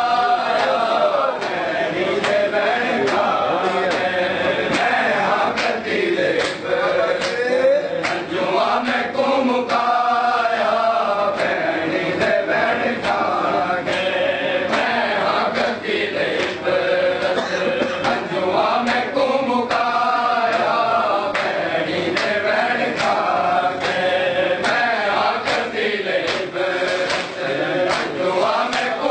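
A group of men chanting a noha (Shia mourning lament) in unison, its phrases repeating, with frequent sharp strikes of matam (chest-beating) running through it.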